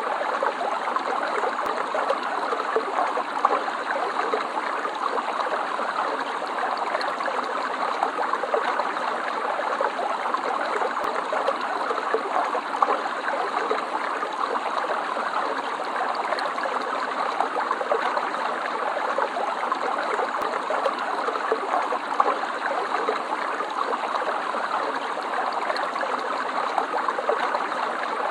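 Stream water running and gurgling over stones, a steady, even flow without pauses.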